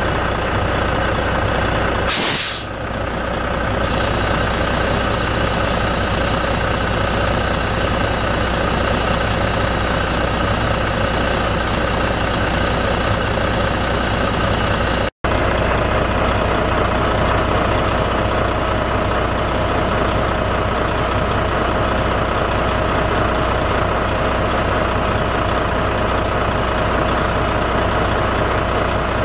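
Volvo FH12 truck's six-cylinder diesel idling steadily, with one short, sharp blast of compressed air about two seconds in as the Wabco air dryer's purge valve vents.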